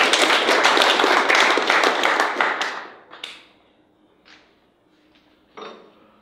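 Audience applauding, dying away about three seconds in, followed by a few scattered claps and a single thump near the end.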